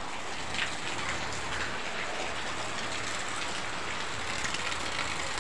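Steady rainfall: an even hiss of rain on wet ground.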